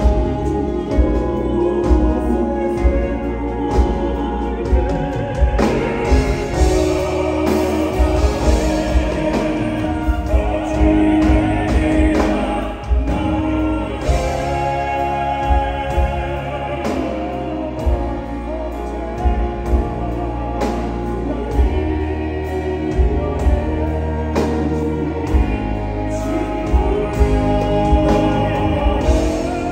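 Male crossover vocal quartet singing a song in harmony, backed by a live band of drums and keyboards. Heard from far back in a concert hall.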